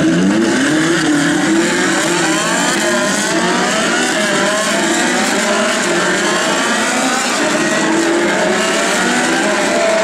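Several Ferrari 458 Challenge race cars, with naturally aspirated 4.5-litre V8s, accelerating hard past one after another. Their overlapping engine notes rise in pitch and drop back as they shift up through the gears.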